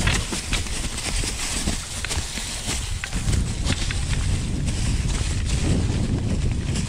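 Orbea Rise e-mountain bike riding over rough trail: tyres crunching over stones with frequent quick knocks and rattles from the bike. A low rumble grows about three seconds in.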